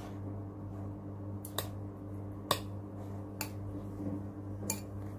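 Plastic chopsticks clicking against a bowl and each other while picking up noodles: about five short, sharp clicks at irregular intervals, over a steady low hum.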